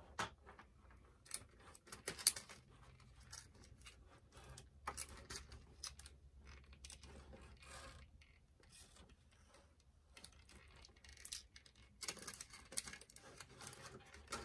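Faint clicking and rustling of small hard-plastic doll accessories and clear plastic packaging being handled, with a denser stretch of rustling near the end.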